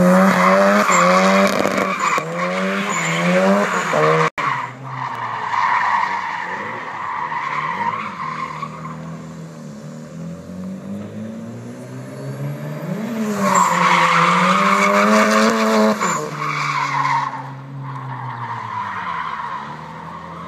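Mazda RX-7's rotary engine revving up and down hard as the car drifts, with tyres squealing on tarmac. It is loudest in the first four seconds and again from about thirteen to sixteen seconds in, and fainter and farther off in between.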